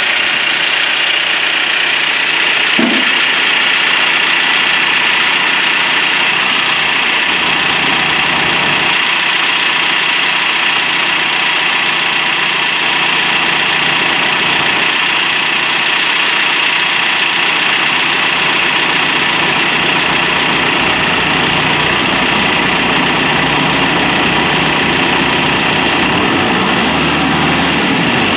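Engine running at a steady idle, unchanging throughout.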